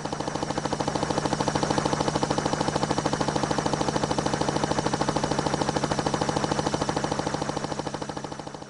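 Helicopter rotor blades chopping in a fast, even beat over a steady engine whine, growing louder over the first second or two and fading near the end.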